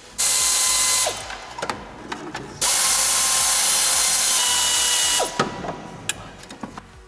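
Pneumatic air ratchet spinning out bolts on the engine's timing-belt end: a short run of about a second, then a longer run of about two and a half seconds.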